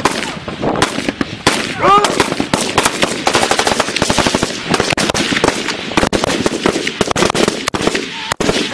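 Several rifles firing at once on a live-fire range: rapid, overlapping shots with no break.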